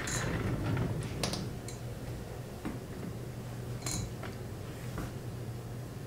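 Scattered light clicks and ticks of hands working a colon hydrotherapy machine's controls, a rustle of movement in the first second and single clicks every second or so after, over a steady low hum.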